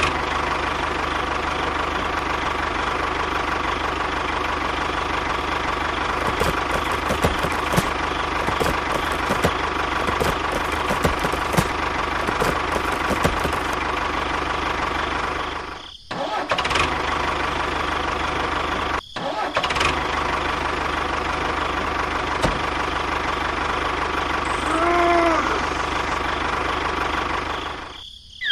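Tractor engine running steadily, with faint ticking through the middle stretch and two brief breaks about 16 and 19 seconds in.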